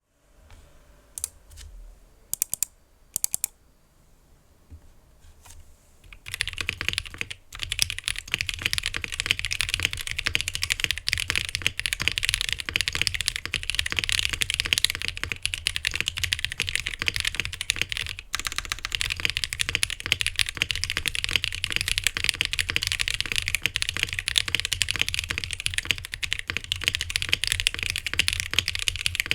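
Typing on a modded Glorious GMMK Pro mechanical keyboard with lubed NovelKeys Cream linear switches, an aluminium plate and GMK keycaps. A few separate keystrokes come first, then from about six seconds in a steady run of fast typing, with one brief pause about two-thirds of the way through.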